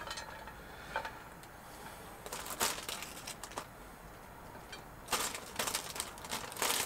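Plastic salad bag rustling and crinkling in several short bursts as salad is shaken out of it onto a plate.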